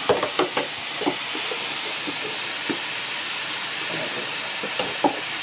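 Seasoned chicken pieces sizzling in a pot over a wood fire: a steady hiss with scattered pops and crackles.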